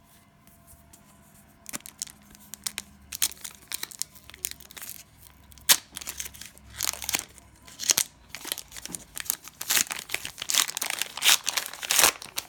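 Cellophane wrapper of a basketball card cello pack being torn open and crinkled, an irregular run of sharp crackles and rustles starting about a second and a half in.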